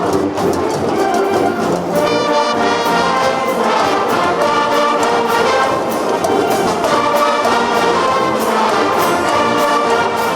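A traditional Oaxacan wind band playing: trumpets, trombones and other brass carry the melody over percussion keeping a steady beat.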